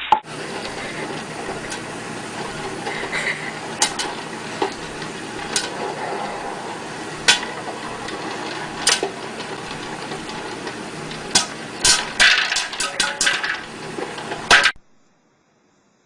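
Steady background noise with scattered sharp clicks and knocks, which come thick and fast for a couple of seconds near the end before the sound cuts off suddenly.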